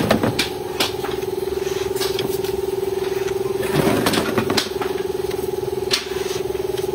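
Sandpaper scraping along a wooden carrom board frame in short hand strokes, the longest burst of rubbing about four seconds in, with a few sharp ticks. A steady pitched mechanical hum runs under it throughout.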